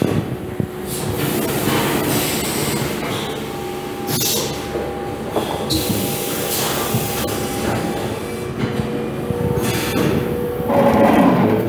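VARIOVAC Rotarius VG rotary tray sealer running its packing cycle, the rotary table carrying filled trays into the sealing station: a steady mechanical hum with faint steady tones and a few short hissing bursts.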